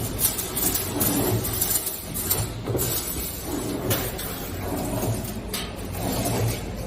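2D CNC wire bending machine running, bending steel wire into square rings: a steady low motor hum with irregular metallic clicks and clanks every second or so.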